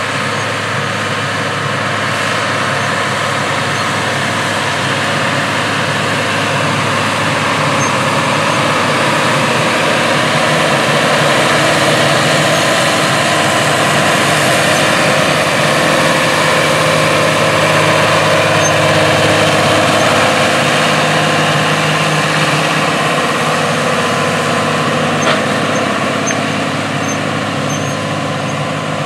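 AGCO White 8810 tractor's diesel engine working steadily under load, pulling a field cultivator through sod. It grows louder toward the middle and fades a little near the end.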